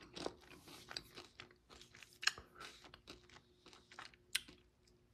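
Close-up crunching and chewing of hard candy-coated chocolate discs from an MRE, irregular crunches with two sharper cracks, about two and four seconds in.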